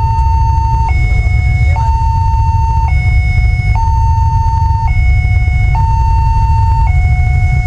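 Railroad level-crossing warning siren sounding from the horn loudspeaker on the crossing signal post. It is an electronic two-tone that alternates high and low, switching about once a second, and it warns that a train is approaching. A steady low rumble runs underneath.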